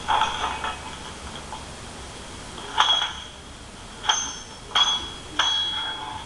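Steel sword blades clashing, about five ringing clangs: one at the start, one near the middle, then three in quick succession. It is a sword-duel recording taken from a movie, played through a lightsaber's small built-in speaker as its lockup sound.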